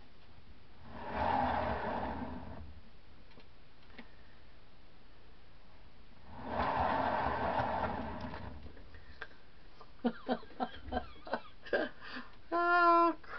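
Hand-turned canvas spinner whirring as it spins a paint-covered canvas, in two spins of about two seconds each. A few light clicks follow near the end.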